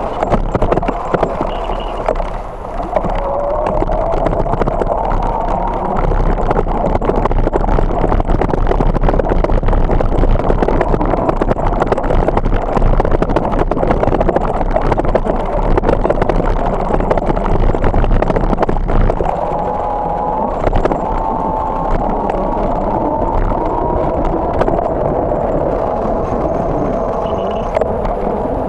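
A bicycle being ridden, recorded from the bike: continuous rushing and rattling noise with a faint wavering whine, louder in the middle stretch while crossing bumpy grass.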